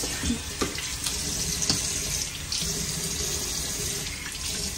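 Bathroom tap running steadily into a sink, with a few light knocks in the first two seconds.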